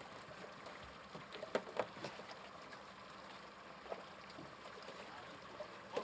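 Quiet steady harbour background with a few sharp knocks of gear as the crew work a pole at the buoys beside the boat: two close together about one and a half to two seconds in, and another near four seconds.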